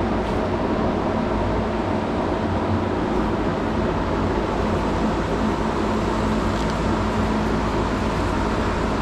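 Electric fan running with a steady hum and an even rushing hiss.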